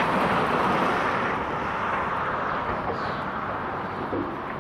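A car driving past on the road, its tyre and road noise loudest at the start and slowly fading away.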